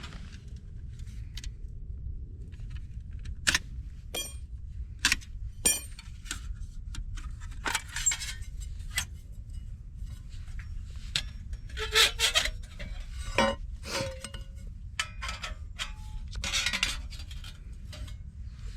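Metal camp cookware and stove parts being handled and set down: scattered clinks and knocks, two of them ringing briefly, with rustling in between. A steady low rumble runs underneath.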